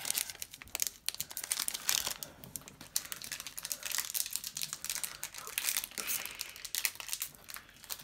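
Foil wrapper of a Pokémon trading card booster pack crinkling and tearing as it is opened and handled, with an irregular run of crackles.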